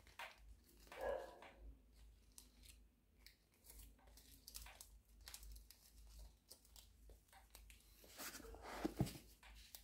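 Faint handling noises at a watch box: light rustles and small clicks, with a louder rustle and a soft knock about eight to nine seconds in.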